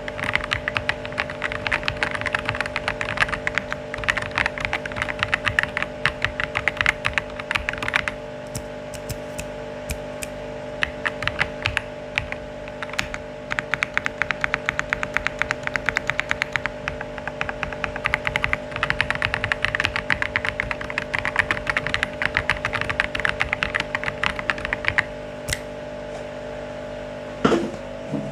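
Typing on a mechanical keyboard: fast runs of keystroke clicks, densest in the first few seconds and then in looser bursts, over a steady low hum. One louder knock comes near the end.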